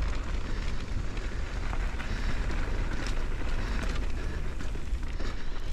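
Wind buffeting the microphone with a steady low rumble over the noise of an e-mountain bike's knobby tyres rolling along a dirt trail, with a few light rattles and ticks from the bike.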